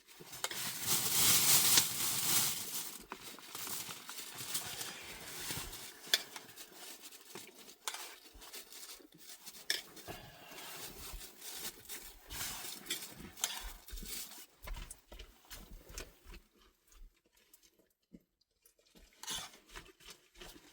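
Camp cookware being handled: a utensil clinking, tapping and scraping in a pot, many small irregular clicks. A loud hiss fills the first three seconds.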